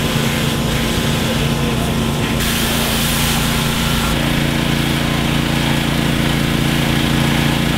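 A pressure washer running: a steady motor-and-pump hum under the hiss of the water jet blasting mud off a motocross bike. The spray's hiss shifts a couple of times, and the sound cuts off suddenly near the end.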